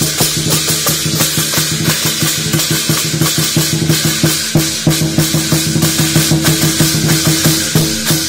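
Drums and cymbals playing a fast, steady percussion beat in the style of a Vietnamese lion-dance troupe.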